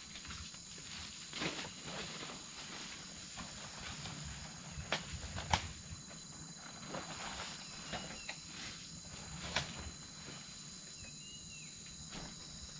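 Faint forest ambience: insects keep up a steady high drone, and footsteps and rustles on dry leaf litter come now and then as a person moves about, with a few sharper knocks. Two short faint chirps come near the middle and towards the end.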